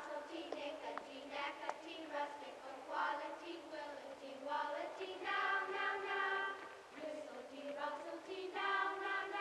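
A class of young children singing a repetitive folk song together in unison, phrase after phrase, with a woman's voice among them.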